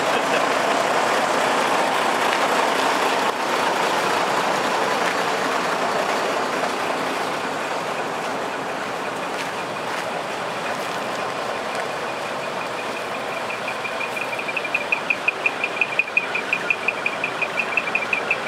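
Steady running noise from the parked trucks. Partway through, a fast, even electronic beeping joins it, about five beeps a second, getting louder toward the end.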